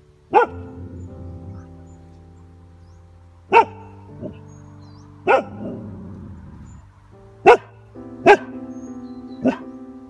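Border Collie barking: about six sharp single barks, spaced unevenly a second or more apart, over soft background piano music.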